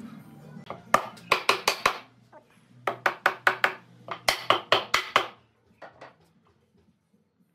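A hammer or mallet knocking on a wooden table-frame joint to drive it together: three quick runs of four or five sharp strikes, then two lighter taps.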